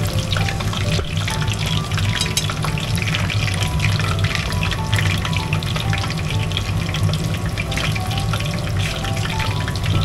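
Breaded pork cutlets (tonkatsu) deep-frying in hot oil: a steady, dense crackling sizzle.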